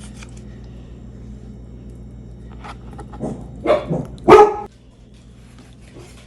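A dog barks a few times, short sharp barks about three and a half to four and a half seconds in, the last one the loudest, over a steady low hum.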